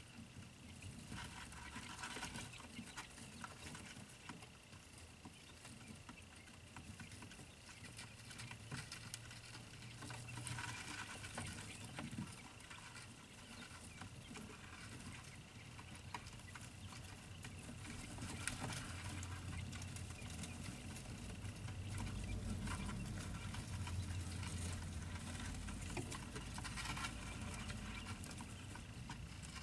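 Day-old quail chicks moving and pecking about, a faint patter of many small light clicks. Under it are a steady faint high tone and a low hum that gets stronger in the second half.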